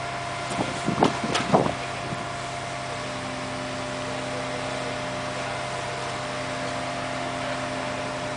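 An engine running steadily at idle, a constant hum with a few fixed tones, with a short clatter of several knocks about a second in.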